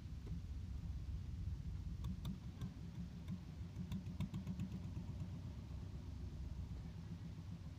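Diesel engine on a wooden fishing boat running steadily with a low hum, while a few light clicks and knocks come from fish being handled on the deck, mostly in the middle of the stretch.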